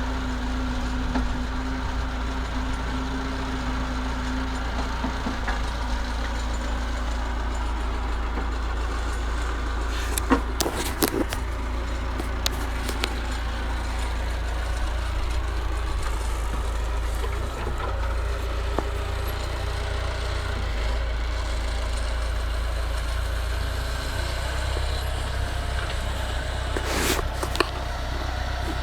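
Massey Ferguson 50HX backhoe loader's diesel engine running steadily, with a few sharp knocks about ten seconds in and again near the end.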